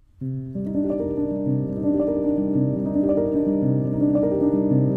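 Instrumental intro music led by piano, a melody of held notes over chords, starting about a quarter second in.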